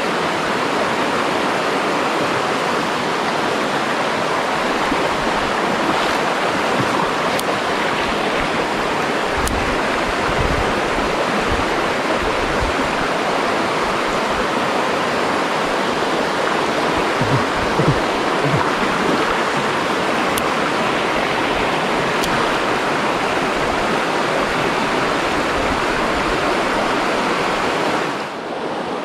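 Shallow mountain-stream rapids rushing steadily over rocks, with a few low bumps in the middle. Just before the end the rush drops a little and turns duller.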